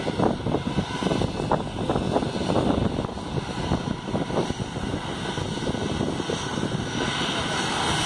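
Airbus A320 jet engines running at taxi power as the airliner rolls past, a steady rumbling noise.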